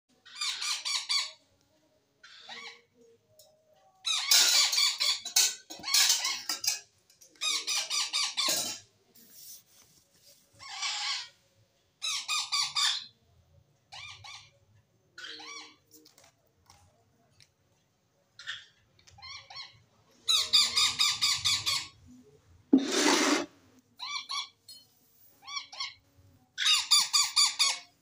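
Parrot chicks begging while being hand-fed: bursts of rapid, repeated chirping, each about a second long, coming again and again with short pauses. There is one louder, harsher call about 23 seconds in.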